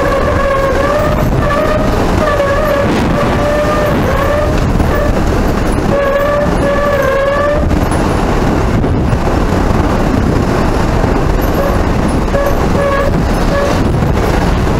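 Hurricane wind roaring steadily, with a wavering, whistling howl that rises and falls in pitch, drops away about eight seconds in and returns near the end.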